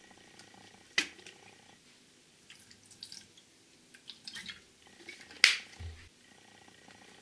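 Cooking sake poured from a plastic bottle in a thin stream, splashing into the liquid in a stainless saucepan. A sharp plastic click about a second in, and a louder click at about five and a half seconds followed by a short low thump.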